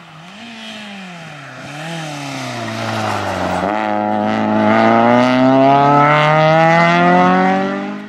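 Peugeot 106 rally car's four-cylinder engine at full effort on a stage. For the first three seconds or so the pitch falls with two short blips, like braking and downshifting into a corner, then it climbs in one long rising rev, getting much louder as the car accelerates closer, and stops abruptly at the end.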